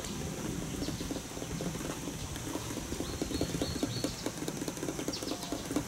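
Fork stirring powdered seasoning mix into water in a glass measuring cup, clinking and scraping against the glass in quick, uneven strokes, several a second.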